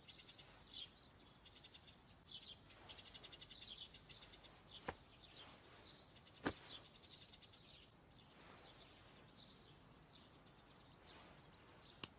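Faint forest ambience of scattered bird chirps and rapid high trills, with three soft clicks: about five seconds in, about six and a half seconds in, and near the end.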